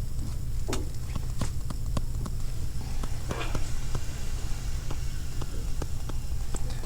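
Handwriting: irregular light taps and a short scratch of a writing tool on a writing surface, over a steady low hum.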